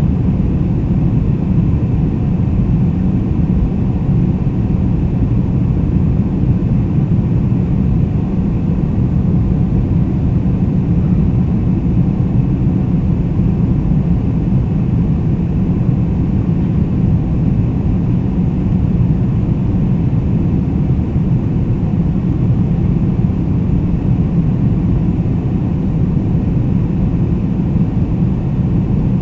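Boeing 747-400's four turbofan engines and airflow making a loud, steady, deep rumble, with faint steady engine tones above it and no change in level.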